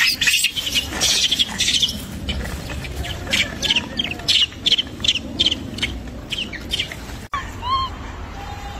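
Bird chirping over and over: short high chirps about two to three a second, then after a break a few scattered squeaky calls.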